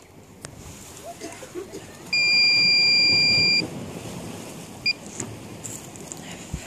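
An electronic piezo buzzer on a KK2.0 flight-controlled DJI F450 quadcopter: one long steady high beep of about a second and a half starting about two seconds in, then one short beep near five seconds.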